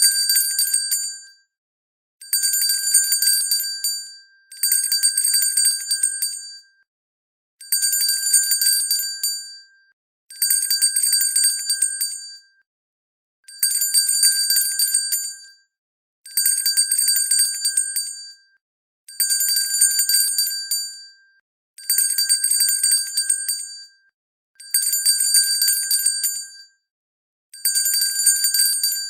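Hand bell shaken in repeated bursts of rapid, high-pitched ringing. Each burst lasts about two seconds and is followed by a short silence, roughly one burst every three seconds.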